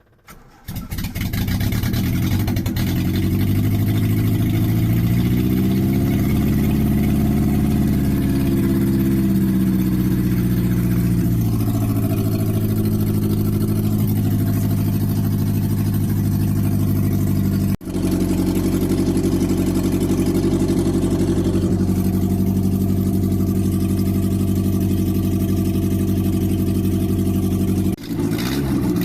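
Toyota Carina's carburetted four-cylinder engine starting about half a second in, just after a head gasket replacement. It then runs steadily, its revs rising for a few seconds and settling back. The sound breaks off abruptly twice, near 18 s and 28 s.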